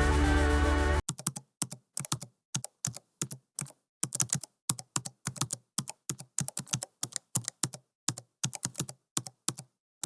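Background music cuts off about a second in, followed by rapid, irregular clicks of computer keyboard typing, several a second, with complete silence between the keystrokes.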